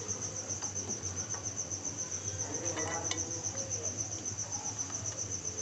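Insect chirping in a steady high, rapid pulse, about eight chirps a second, over a low steady hum, with a few faint clicks about three seconds in.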